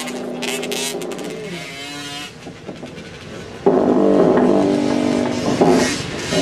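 50cc motocross bike engines running on the track. A louder steady engine note comes in suddenly a bit past halfway and holds for about two seconds.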